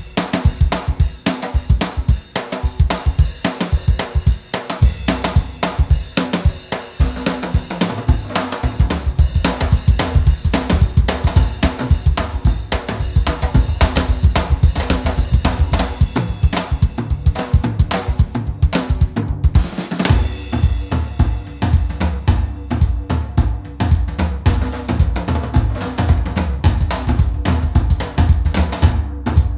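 Background music: a drum-kit track with a steady beat, with a brief break about twenty seconds in.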